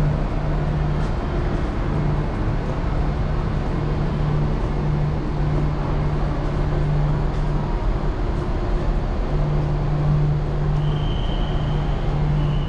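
Steady engine drone and rumble of a heavy vehicle underway. A low hum comes and goes, and a thin high tone sounds for about a second near the end.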